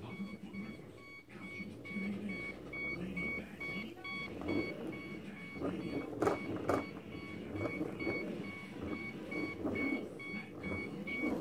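Self-balancing hoverboard beeping a rapid, evenly repeating high warning tone, the sign that its battery needs charging. Two sharp knocks come about half a second apart around six seconds in.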